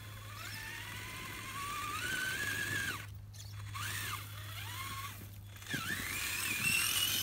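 Traxxas Summit RC truck's electric motor and gears whining as it crawls, the pitch rising and falling with the throttle. The whine cuts out briefly twice, about three seconds in and again past five seconds, then comes back higher and louder near the end.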